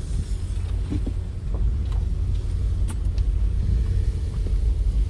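A car driving: a steady low rumble, with a few faint knocks.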